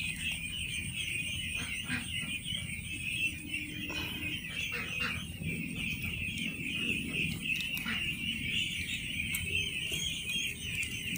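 A flock of young ducklings peeping continuously, a dense chorus of high calls, with a few small clicks over it.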